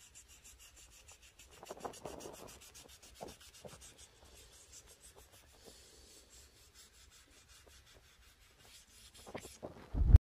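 A hand rubbing a small pad over the painted raised relief of a fish-shaped plaque, making soft, irregular scratchy strokes with pauses between them. A brief low thump comes near the end.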